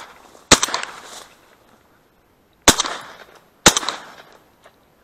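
Armsan 612 semi-automatic shotgun firing three shots: one about half a second in, then two a second apart near the end, each dying away over about a second.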